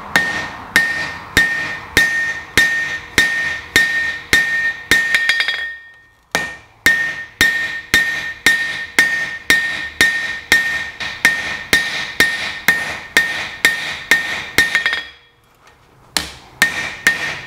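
Hand hammer striking red-hot 4140 steel on an anvil in steady blows, nearly three a second, each with a clear metallic ring. There are short pauses about six seconds in and about fifteen seconds in. The blows are forging down the end of the bar to spread the tip of a hot-cut chisel.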